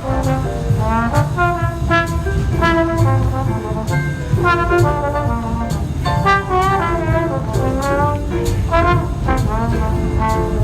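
A subway performer plays a melody on a brass horn, with some notes bending and sliding, over a steady beat and bass.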